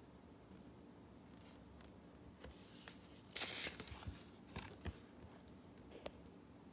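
A page of a picture book being turned by hand: a soft paper rustle, then a louder swish of the page about three and a half seconds in, followed by a few light taps and rustles as it settles.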